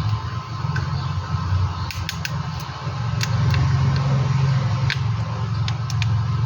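A steady low mechanical hum runs under scattered light clicks and taps of small tools and parts as an opened smartphone is taken apart. The clicks come in small clusters, a few of them close together.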